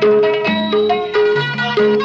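Instrumental Nepali folk music: a plucked-string melody repeating a short phrase over a steady beat, about two to three notes a second.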